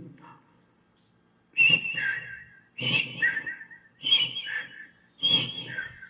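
A person whistling a repeated two-note call, a high note dropping to a lower one, four times at an even pace, with breathy air noise under each call.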